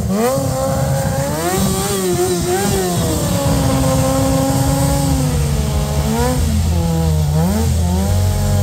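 Motorcycle engine being revved: its pitch climbs and falls several times, holds steady for a couple of seconds in the middle, then rises and drops again near the end.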